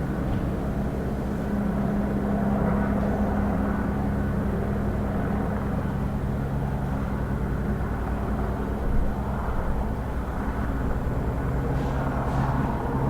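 Police helicopter hovering: the fast, steady beat of the rotor blades over a steady low engine hum.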